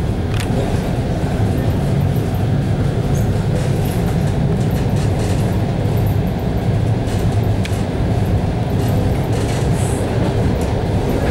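Suburban train heard from inside the carriage while it runs along the track: a steady rumble of wheels and running gear. A couple of faint sharp clicks sound over it, one right at the start and one a little after the middle.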